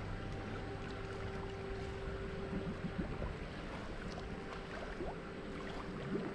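Water splashing and swishing as a swimmer does breaststroke strokes through a pool, over a steady faint hum.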